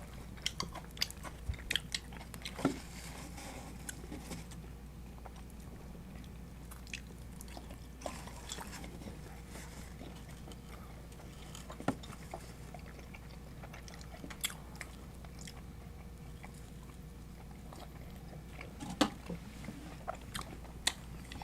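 Someone chewing and biting into pizza crust and cheesy bread, with scattered short crackles and clicks from the bites. A low steady hum runs underneath.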